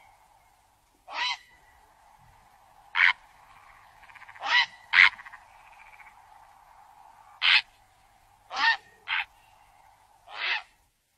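Heron calls played as a hunting lure: about eight short, harsh croaking squawks at uneven intervals, two of them close together near the middle. A faint steady drone runs beneath them.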